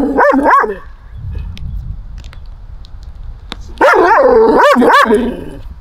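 Saluki barking while rearing and lunging on its lead, typical of its reactivity toward other dogs: a short run of barks at the start, then a second run about four seconds in.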